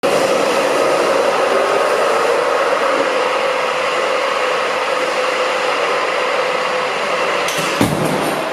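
Steady whooshing noise with a faint held whine as a Citroën C3 Aircross is propelled along the floor rail of a crash-test track toward the barrier. About two-thirds of the way through the sound changes, with a brief low thump.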